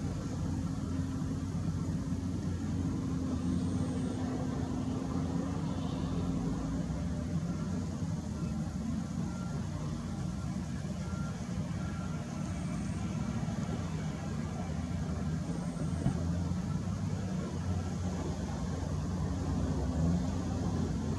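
Heavy diesel engines of a Hitachi ZW310 wheel loader and a dump truck running steadily at work, a low, even engine hum.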